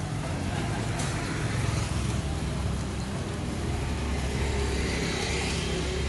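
Road traffic going by on the street, with a passing vehicle growing louder in the second half.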